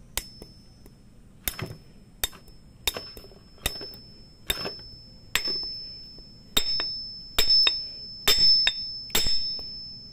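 Hammer blows driving a wooden wedge into the handle end inside a hammer head's eye to tighten the loose head. About a dozen strikes, growing louder and coming closer together, often in pairs, toward the end, with a high metallic ring lingering after the later blows.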